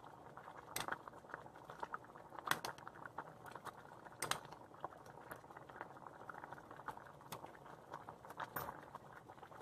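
Dal makhani boiling hard over a high flame in a wide pan: a steady soft bubbling with occasional sharp pops.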